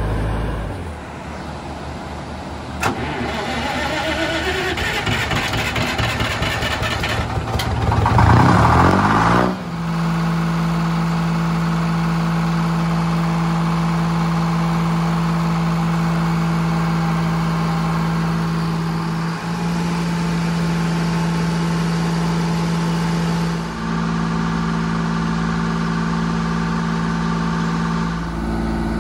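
Three-cylinder Detroit Diesel two-stroke engine powering a circular sawmill. For the first several seconds it is starting and picking up speed, with a click and a rising, surging note. It then runs steadily at constant speed, and its pitch shifts slightly twice near the end.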